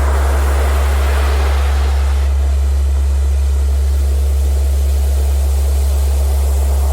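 A steady deep tone, a frequency-therapy tone, held under a recording of ocean surf. A wave surges and washes in at the start, ebbs about two seconds in, and another builds near the end.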